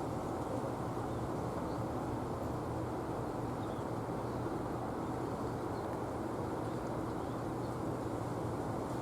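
Steady low rumble with a faint hum, like distant traffic or machinery, with a few faint high chirps of small birds.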